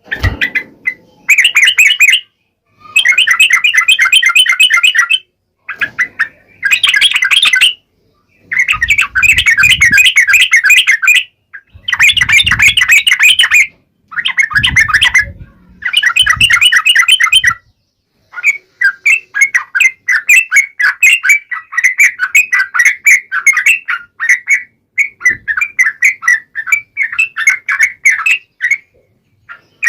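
Yellow-vented bulbul (trucukan) singing in loud bursts of rapid, repeated chattering notes, each burst a second or two long with short pauses between, running into a longer unbroken stretch of song in the second half.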